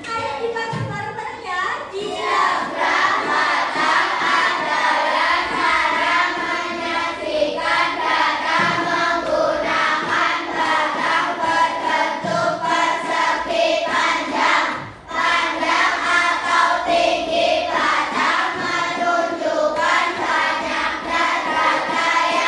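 A group of children singing a song together in unison, with a brief break about two-thirds of the way through.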